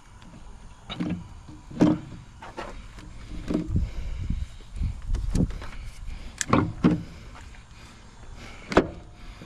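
Metal knocks and clunks as a truck's air compressor is wiggled and pushed onto its mounting on the engine. There are about seven sharp knocks at uneven intervals, with a low rumble in the middle.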